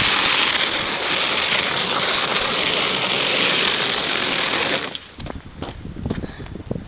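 Battery-powered RC car running, its electric motor whining steadily for about five seconds, then cutting off.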